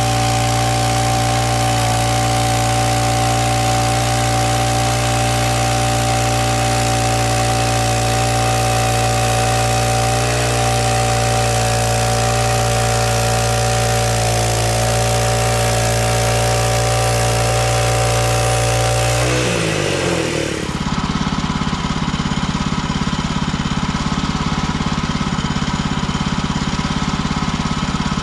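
Engine of a Woodland Mills HM130 Max portable bandsaw mill running steadily at high speed with a hiss over it. About nineteen seconds in its pitch drops quickly as it is throttled down, and it settles into a lower idle with a fast, low pulsing.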